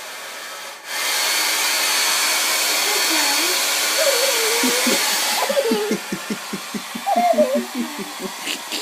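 Handheld hair dryer cutting out for a moment and then coming back on a higher setting about a second in, running with a loud, even rushing hiss and a faint steady whine. About five seconds in it drops back to a lower level, while a young child vocalizes over it in quick pulses.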